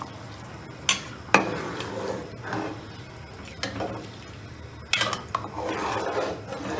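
Metal spoon stirring rice, peas and potato through water and masala in a steel pot, with two sharp clinks of spoon on pot about a second in and scraping, sloshing strokes after.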